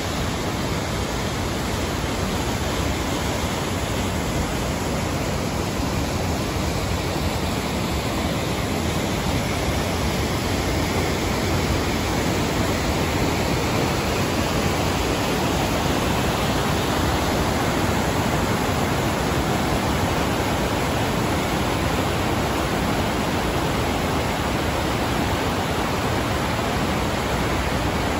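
Waterfall plunging into a rocky pool and the river rushing below it: a steady, loud rush of falling water that never lets up.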